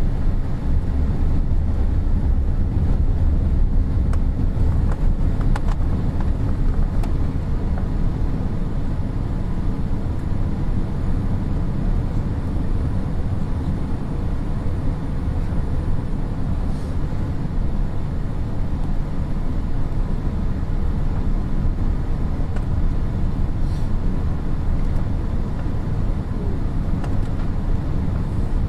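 Steady cabin noise inside a Boeing 787-8 airliner in flight: a low rumble of airflow and its Rolls-Royce Trent 1000 engines, with faint steady tones above it.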